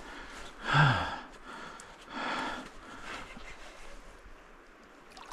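A man breathing hard and out of breath after fighting a big chum salmon. A loud voiced exhale falls in pitch about a second in, followed by two fainter breaths.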